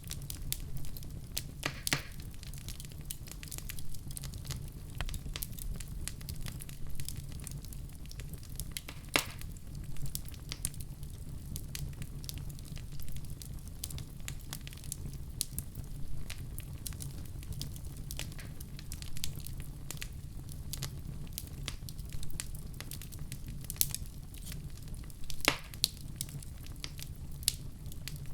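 Wood fire burning with a steady low rumble and frequent irregular crackles and pops, a few of them sharper and louder.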